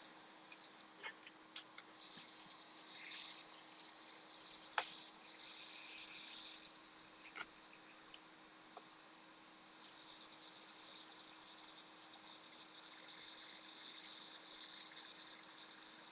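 A plastic playing card scraping and sliding along the adhesive under a MacBook Pro display bezel as it is pried loose. The scraping is a rasping hiss that starts about two seconds in, comes in uneven strokes, and follows a few sharp clicks at the start, with one louder click about five seconds in.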